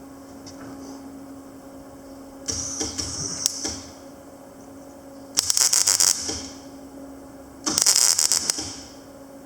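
Panasonic MINI160 semi-automatic wire-feed welder making short test welds: three bursts of arc crackle about a second each, the first weaker and the last two loud, over the machine's steady hum.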